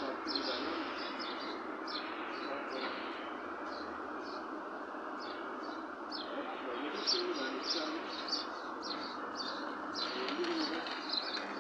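Small birds chirping in quick, short, high calls, several a second and on and off, over a steady background murmur.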